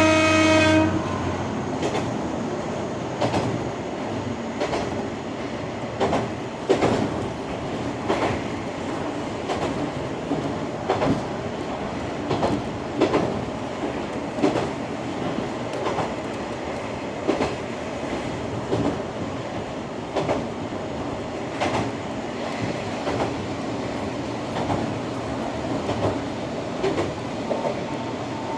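A Kanto Railway Joso Line diesel railcar running along the line, its wheels clacking over rail joints every second or two. A horn is heard at the very start and cuts off about a second in.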